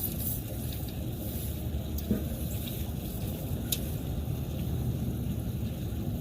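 Steady low rumble of background noise with a few faint clicks and taps, a sharper knock about two seconds in and a click a little before four seconds.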